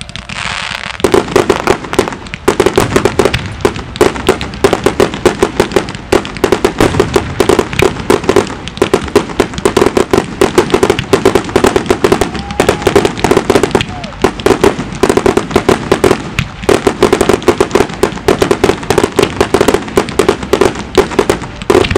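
Fireworks display firing a dense, rapid barrage of bangs and crackles, many shells and comets going off in quick succession. It builds sharply about a second in, with a couple of brief lulls later on.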